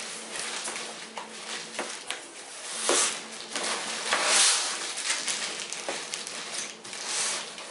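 Cardboard packaging pulled apart by hand: flaps torn and folded open and the box scraping and knocking on a wooden tabletop, with loud rustles about three and four seconds in. Plastic wrap crinkles as the wrapped parts inside are handled.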